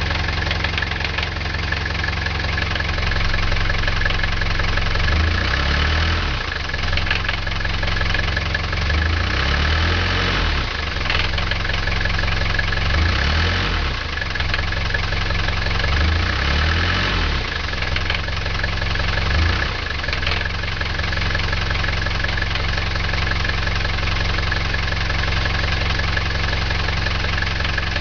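Mercedes 207D van's OM 616 four-cylinder diesel idling, with a clattering rattle from its 711.110 five-speed gearbox, a noise the owner hears at idle and most when the clutch pedal is pressed. Several times in the middle stretch the sound briefly swells and shifts in pitch.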